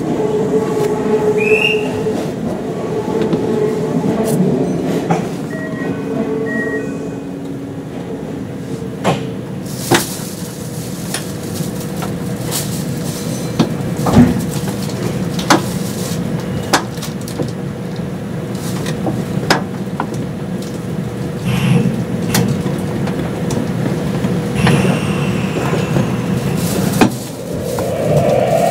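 Kintetsu 22600 series limited express train with Mitsubishi IGBT-VVVF traction equipment pulling out and running, heard from on board: a steady hum and rumble of motors and wheels. Scattered sharp clicks mark the wheels crossing rail joints.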